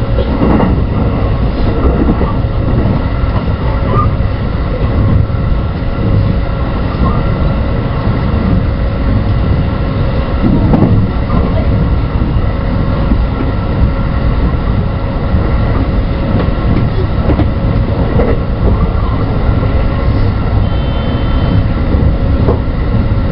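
JR West 223 series 2000-subseries electric train running at speed, heard from just behind the driver's cab: steady rumble of wheels on rail with a constant hum from the running gear. A brief faint high tone sounds near the end.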